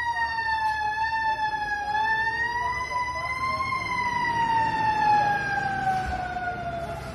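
Fire engine siren wailing: one long tone that wavers slowly up and down, then falls steadily in pitch and fades over the last few seconds as the engine drives away.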